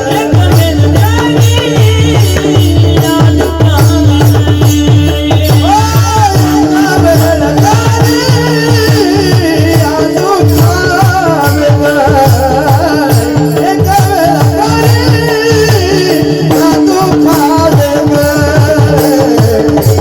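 Devotional bhajan: a solo voice singing a wavering, ornamented melody over a steady held drone tone and fast, continuous hand-drum strokes.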